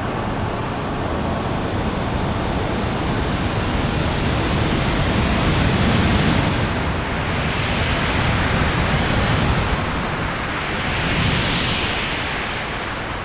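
Sound-effect rumble of a supernova explosion: a dense rushing noise, heavy at the low end, that swells twice, about halfway through and again near the end.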